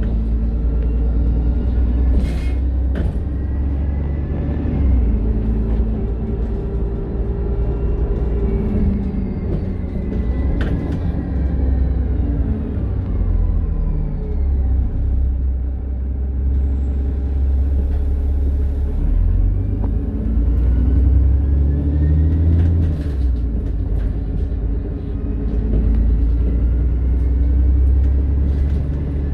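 Dennis Trident double-decker bus running with a heavy low rumble. Its engine and drivetrain pitch rises and falls several times. A few sharp knocks come through the rumble.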